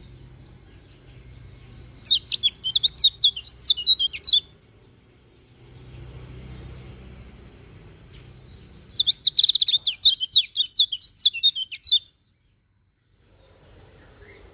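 Kecial kuning (a white-eye) singing: two bursts of rapid, high chirping notes a few seconds apart, each lasting about two to three seconds.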